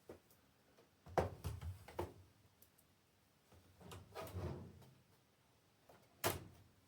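A few handling clicks and knocks: a cluster of sharp clicks a little over a second in, a short rustling stretch about four seconds in, and one sharp click near the end.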